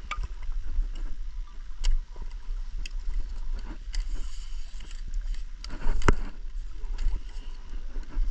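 Wind rumbling on the microphone, with scattered sharp clicks and knocks, the loudest about two seconds and six seconds in.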